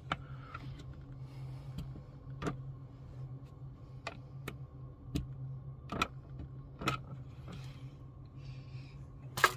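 Scattered light clicks and knocks of a plastic fibre splice box and a marking tool being handled against a wall while its screw holes are marked, over a steady low hum. The sharpest knock comes near the end.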